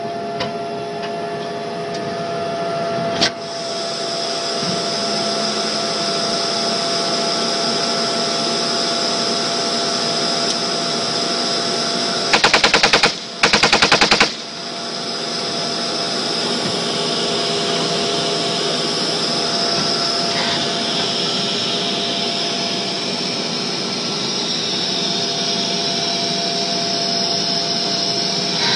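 M1A1 Abrams tank on the move, its gas-turbine engine and running gear making a steady loud noise with a high whine. About twelve seconds in, a machine gun fires two rapid bursts of about a second each, the loudest sound here; a single sharp crack comes about three seconds in.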